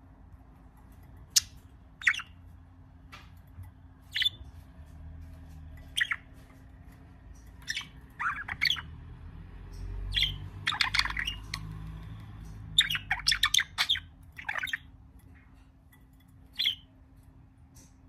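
Budgerigar chirping and squawking in short, sharp calls scattered at irregular intervals, with quick runs of several calls in a row around the middle and again a little later.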